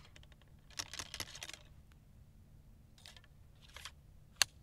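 Light clicks, scrapes and rustles of a Lorenz rifle-musket being loaded at the muzzle, the ramrod working in the barrel, with one sharp click near the end.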